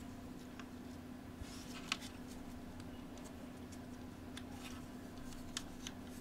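A few light plastic clicks and taps from handling the opened-up 3D printing pen, over a steady low hum.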